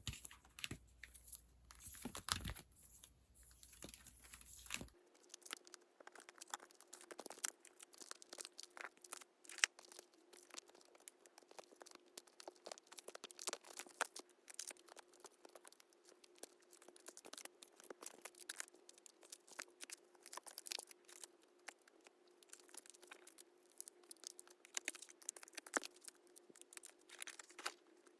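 Close, faint rustling, crinkling and tearing of paper and plastic packaging handled by hand, a dense run of small clicks and rustles; a faint steady hum joins underneath from about five seconds in.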